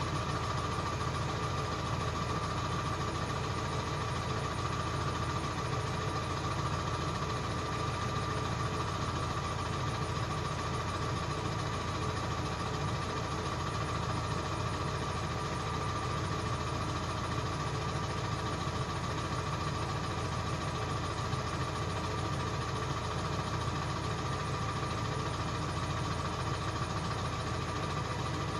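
Ford 7.3 L Power Stroke V8 turbo-diesel idling steadily after a cold start, a steady high turbo whistle running over the engine's low rumble.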